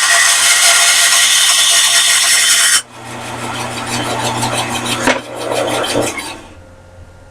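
Bandsaw with a bi-metal blade cutting through a piece of die-cast pot metal: a loud, harsh rasping that cuts off sharply about three seconds in. The saw then runs on with a quieter rasp and steady hum, and the sound dies away about six seconds in.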